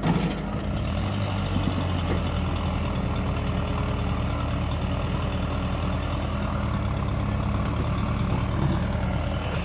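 Diesel engine of a CAT tracked excavator running steadily at work, a continuous low drone that grows stronger about a second in.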